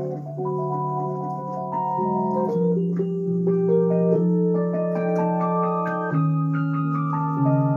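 Electronic keyboard played solo: held chords shifting every second or so, with a melody moving above them.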